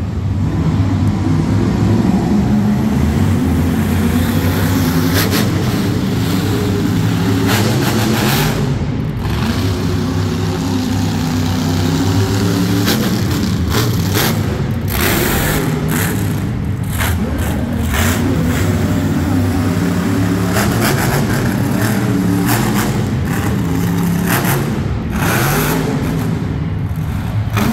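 Monster truck engine running hard, revving up and down repeatedly as the truck makes a trick run.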